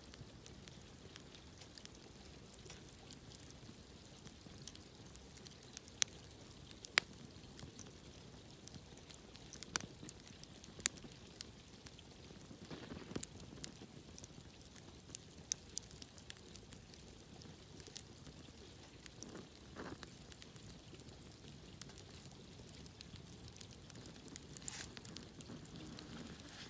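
Wood campfire crackling softly, with irregular sharp pops now and then over a faint steady hiss.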